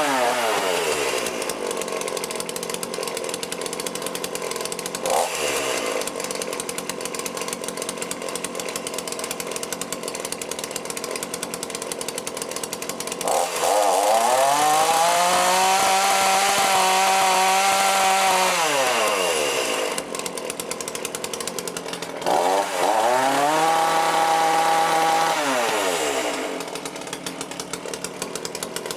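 Two-stroke chainsaw engine with a freshly rebuilt Walbro carburettor, idling and revved on the throttle while warming up for mixture-screw tuning. It drops from high revs to idle at the start and blips briefly about five seconds in. Around the middle it holds a long high rev for about six seconds, then gives a short blip and a shorter rev before falling back to idle near the end.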